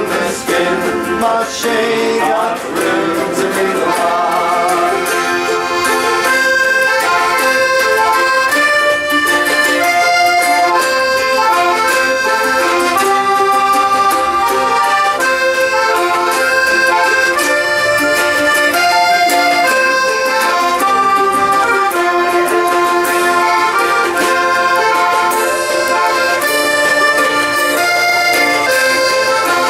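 A folk band playing an instrumental break, with an accordion carrying the melody in held notes that step from pitch to pitch over the band's accompaniment.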